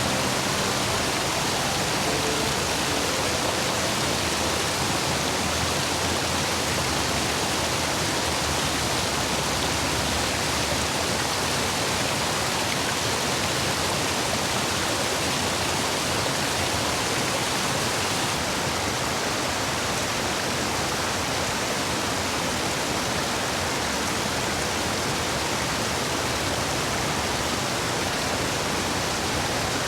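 A rain-swollen stream rushing through the gaps between stepping stones and over them, a steady full rush of flowing water.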